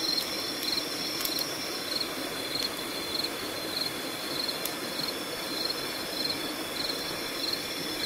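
Night insects chirping: a short high chirp repeating about every half second over a steady high-pitched trill, with the even rush of a stream beneath.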